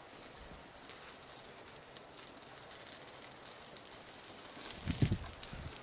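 Small kindling catching fire and crackling, the fine snaps growing busier as the flame takes hold, with a brief louder low thump near the end.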